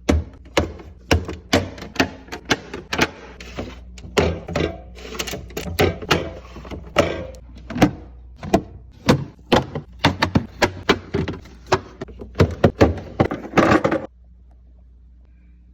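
Food containers and packages being set into a refrigerator: a quick, uneven run of clacks, taps and thunks as items are placed on the shelves. They stop about fourteen seconds in, leaving a faint low hum.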